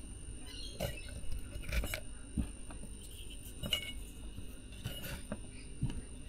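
Dried octopus mallee seed pods being pushed by hand in among rolled corrugated cardboard inside a ceramic teapot: a handful of light, irregular clicks and taps of the woody pods against the porcelain and cardboard.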